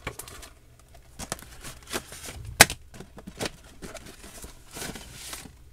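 Cardboard-and-plastic Blu-ray packaging being handled and opened: scattered clicks and short rustles, with one sharp click about two and a half seconds in and a longer rustle near the end.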